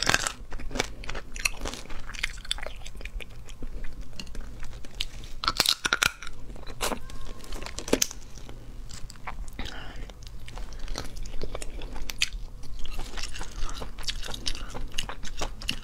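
Close-miked crunching and cracking of cooked crayfish claw shells being bitten and pulled apart, with chewing in between. Sharp irregular cracks, loudest at about six seconds in.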